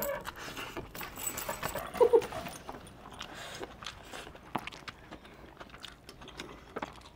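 Quiet eating by hand: fingers working noodles on a steel plate and chewing, with scattered light metallic clicks and clinks. A brief murmur about two seconds in.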